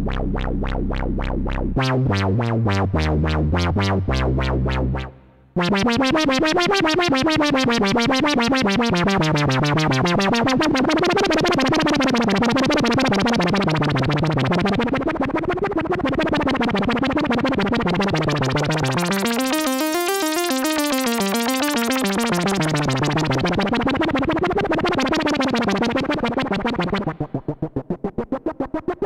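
Erica Synths Polivoks modular synthesizer tone through its resonant Polivoks filter. The filter's cutoff sweeps up and down about every two seconds, driven by a cycling envelope generator used as an LFO. It opens on a steady low tone, then quickly changing low notes, drops out briefly about five seconds in, and near the end starts pulsing on and off rapidly.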